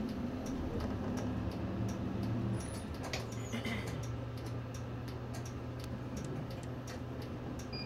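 Turn-signal relay of a Nissan Space Runner city bus ticking steadily, about two ticks a second, over the low hum of the bus's engine as it pulls away in traffic. The engine note falls in pitch about three to four seconds in.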